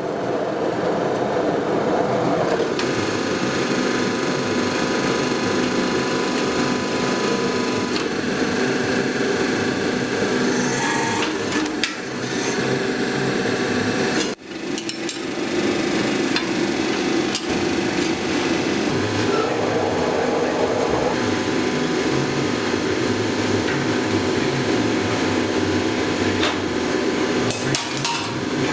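Mechanically driven riveting hammer pounding rapidly and continuously on hot steel rivets, with a brief break about halfway through.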